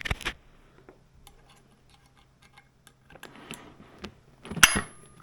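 Small metallic clicks and ticks of a hand tool working on screws in a scooter's stem, with one sharp metal clink about four and a half seconds in that rings briefly.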